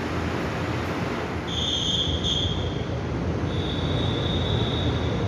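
Train rumbling at a station platform, with two high, steady squeals: one about a second and a half in, lasting a second or so, and a second starting about three and a half seconds in.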